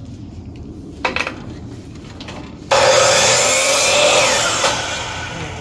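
Cutting through a refrigerator water filter's compressed carbon block: a harsh rasping cut that starts suddenly past the middle, holds for about two seconds and tails off. A short clatter comes about a second in.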